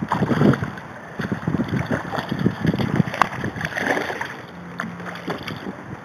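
Hooked bass thrashing and splashing at the water's surface on a fishing line, in loud bursts in the first half, with sharp clicks scattered through. The splashing dies down after about four seconds as the fish is lifted from the water.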